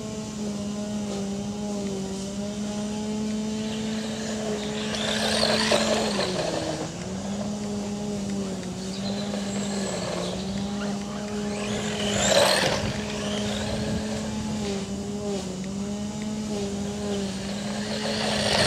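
FTX Tracer RC off-road buggy with a brushed electric motor running laps on loose dirt, passing close three times, about six seconds apart, each pass a rising and falling rush of motor whine and tyres on dirt. A steady low hum runs underneath.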